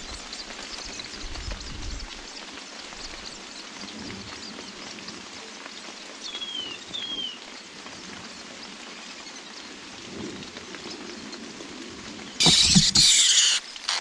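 Steady rain hiss. About halfway through come two short, falling whistled bird chirps, and near the end a loud harsh burst of noise lasting about a second.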